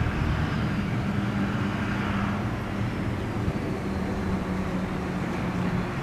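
Federal Signal Thunderbolt 1000T siren running without its blower, heard faint, a thin tone slowly falling in pitch, under a steady low hum. The weak sound comes from the dead blower motor.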